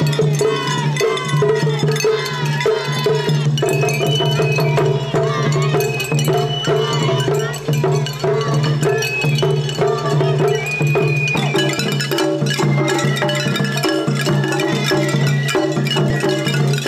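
Shagiri festival music played on a festival float: small brass hand cymbals clash in a fast, steady rhythm over taiko drums. Voices call out over it in the first few seconds.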